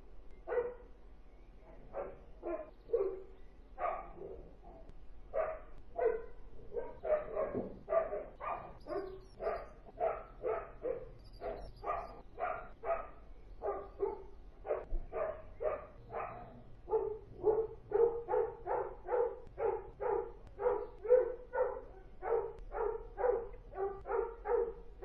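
Dogs barking over and over in short barks, about two a second, steadier and more regular in the second half: the ongoing barking from a breeding kennel that is the subject of a noise-nuisance complaint.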